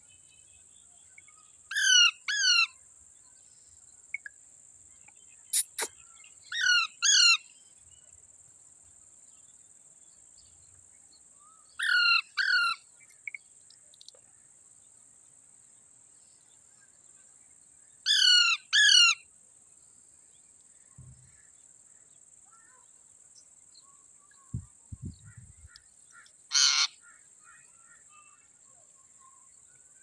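Ring-necked parakeets giving harsh, screechy calls in pairs of two quick notes, four pairs about five seconds apart, then one single rough screech near the end.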